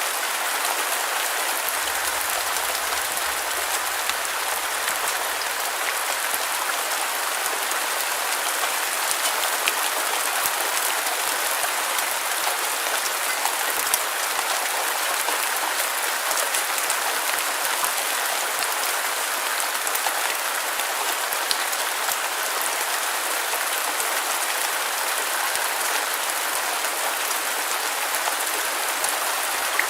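Steady rain falling: a dense, even hiss of drops with scattered sharper drop ticks.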